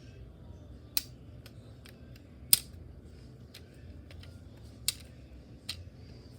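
Sharp plastic clicks and taps from a hand-built Lego pistol being handled. There are four clear clicks among fainter ticks, and the loudest comes about two and a half seconds in.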